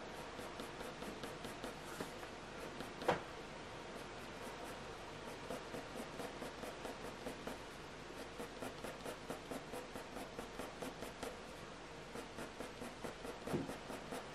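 Graphite pencil scratching across hot-press watercolour paper in runs of short, quick shading strokes, about three a second, laying in fur texture. Two louder knocks come about three seconds in and near the end.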